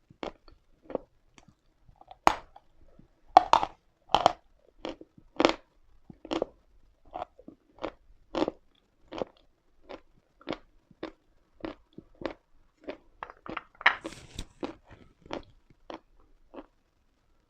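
Chalk crunching as it is bitten and chewed close to the microphone: a steady run of crisp crunches about one and a half a second, with a few louder bites in the first few seconds and a quick flurry near the end before the chewing stops.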